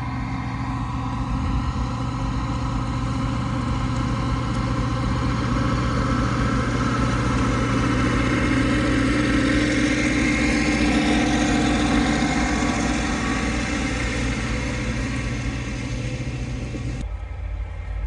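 Farm tractor engine towing a grain cart, running steadily as it approaches, growing louder to a peak about ten seconds in as it passes close, then fading as it moves away. The sound changes abruptly about a second before the end.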